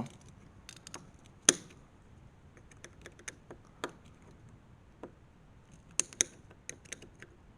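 Scattered sharp metallic clicks and taps from a screwdriver working the screws of a loose door handle, the loudest about a second and a half in.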